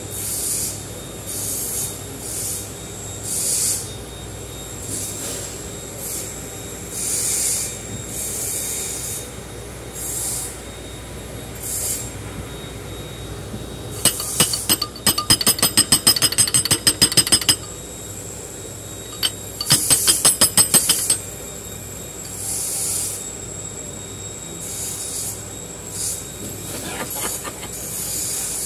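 Hand work on a Mercedes-Benz Actros truck's fan clutch: repeated short metal scraping strokes, with two runs of rapid sharp clicking, one about halfway through and a shorter one a few seconds later.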